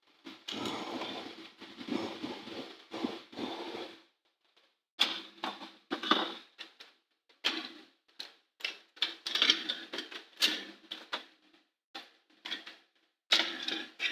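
Irregular clicks, taps and scrapes of an Acer laptop being taken apart by hand, with plastic case parts and small tools being handled, coming in clusters with short pauses between.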